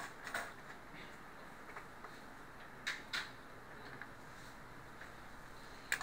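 A few soft clicks and knocks of a plastic switch plate and pencil being handled on a desktop, over faint room noise.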